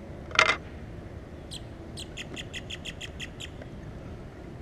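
A bird calling a quick run of about a dozen short, high chirps, roughly five a second, after a brief louder sound near the start.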